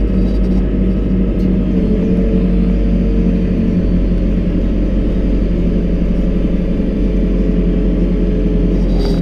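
JCB 541-70 Agripro telehandler's diesel engine running steadily, heard from inside the cab, with a faint steady whine above the deep engine note.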